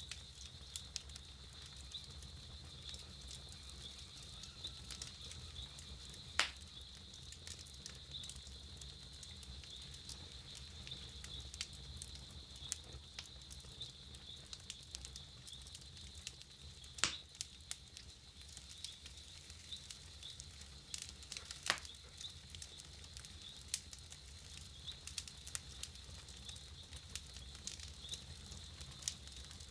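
Wood campfire crackling, with frequent small ticks and three louder pops, about six, seventeen and twenty-two seconds in, over a steady high-pitched tone.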